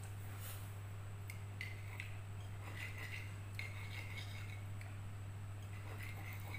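Metal cutlery scraping and clinking against a ceramic plate as fried instant noodles are gathered, in several short strokes, over a steady low hum.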